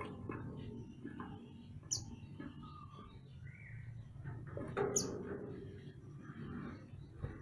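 A mantenan gunung songbird singing: scattered chirps, with a sharp, high note about two seconds in and another about five seconds in, over a steady low background hum.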